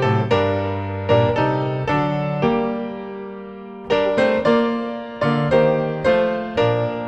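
Piano playing a hymn tune in full chords, each chord struck sharply and left to ring and fade before the next.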